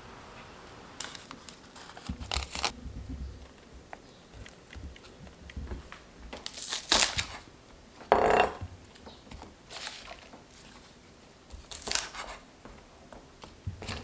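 Food-prep sounds of a knife cutting green onions on a wooden cutting board: a handful of short, crisp cuts and crunches spaced a second or more apart. The loudest, a fuller crunch, comes about eight seconds in.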